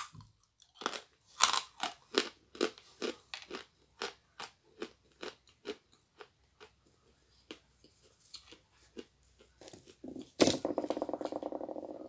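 Crunching bites and chewing of a dry lump of Akbulak edible clay, sharp crunches about twice a second at first, then thinning out. Near the end a sudden loud sound is followed by a buzzing hum for about a second and a half.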